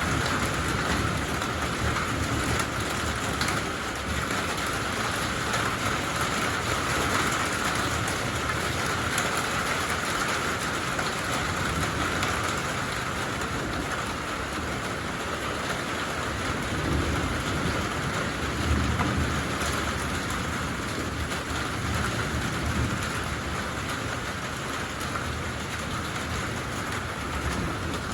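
Steady rain falling during a thunderstorm, with low rumbles of thunder that swell past the middle.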